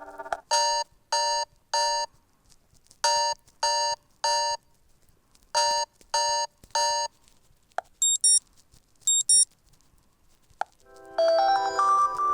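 Fly FS458 Stratus 7 mobile phone playing its stock ringtones through its loudspeaker. First comes a pattern of three short electronic beeps, repeated three times. Then two quick pairs of high-pitched chirps, with a short click before each change of tone, and near the end a new many-note ringtone melody begins.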